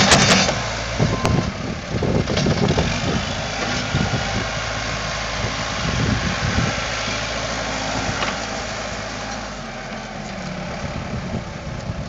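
Case 590 Super M backhoe loader's four-cylinder diesel engine running and working as the loader bucket lifts dirt, with uneven surges in the sound, growing quieter over the last few seconds.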